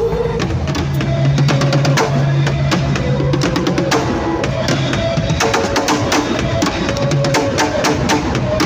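Drum kit played in a dense run of strokes along to a music track with held low bass notes.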